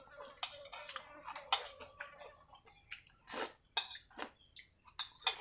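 Slurping clear vegetable broth from a spoon held at the lips over a bowl: a quick, irregular run of short slurps and mouth sounds, the sharpest of them about one and a half seconds in.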